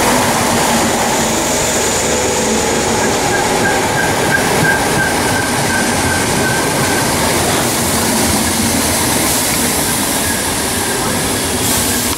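Southern class 313 electric multiple unit running into the platform close past the microphone: a steady loud rumble and clatter of wheels on the rails, with a faint high squeal for a few seconds in the middle.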